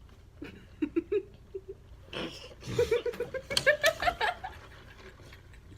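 Girls laughing: a few short giggles, a breathy burst just after two seconds in, then a run of rapid laughter about three seconds in.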